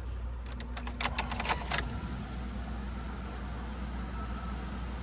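A brief jangle of keys, over the steady low hum of the Mitsubishi Lancer Evolution X's engine idling.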